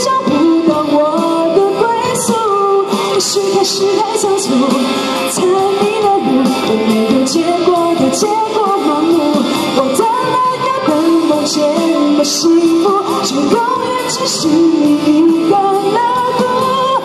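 A woman singing a Mandarin pop song live into a handheld microphone, with a melodic vocal line over continuous musical accompaniment.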